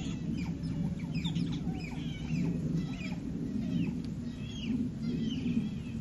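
Otters chirping and squeaking: many short high-pitched calls, several a second, over a steady low hum.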